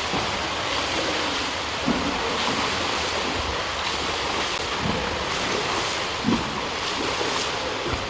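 Continuous churning and splashing of water in a swimming pool, with two short louder splashes, about two seconds in and a little past six seconds.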